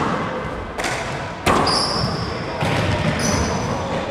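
Rubber handball struck by hand and smacking off the court walls in a rally, with two sharp echoing hits about a second and a second and a half in. Sneakers squeak briefly on the hardwood floor in between.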